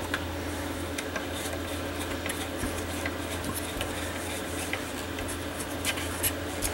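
Light metallic clicks and taps as a hex driver snugs the small fan shroud bolts on a metal RC helicopter frame, over a steady low hum.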